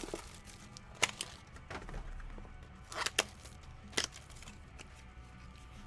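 Sharp taps and clicks of cardboard trading card boxes being handled and set down on a table: once about a second in, twice near three seconds, and once at four seconds.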